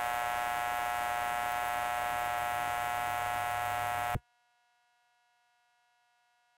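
Steady electrical buzz, a low hum with a dense row of overtones, that cuts off abruptly about four seconds in and leaves near silence.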